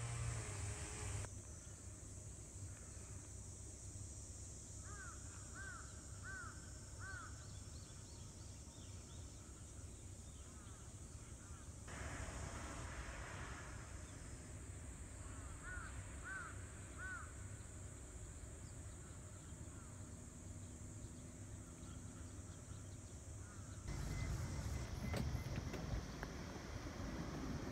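A crow cawing, two runs of three calls about ten seconds apart, over a low steady outdoor hum.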